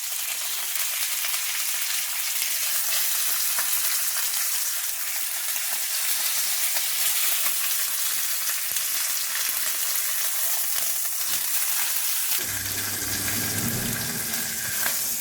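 Pork chops searing in hot olive oil in a non-stick pan, their fat edge down on the pan, with a steady sizzle. A low hum joins in near the end.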